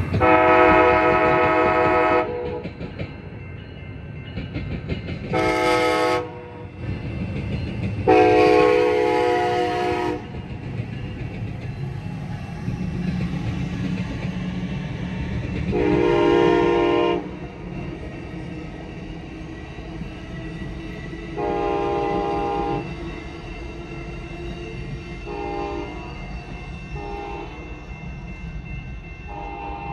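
Locomotive's K5LA five-chime air horn sounding a series of blasts: a long one, a short one, another long one, then further blasts that grow shorter and fainter, with a few quick toots near the end. Under it runs the low rumble and clickety-clack of the passing train.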